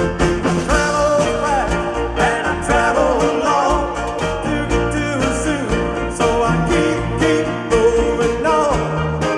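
Band music in a country-rock style with a steady drum beat, guitar and chords under a melody line that bends and glides.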